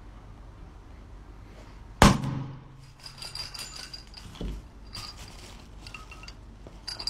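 Miniature cannon-style pressure popcorn popper opened with its lever: one loud bang as the pressure is released and the puffed kernels blast into the mesh bag, ringing as it dies away. A dull thump follows, then light metallic clinks as the vessel's latch is handled.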